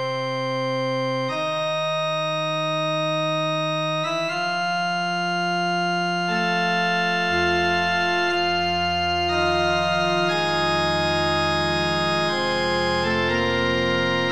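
Organ playing a slow fugue in long held notes, the voices moving in counterpoint. A lower voice comes in about seven seconds in.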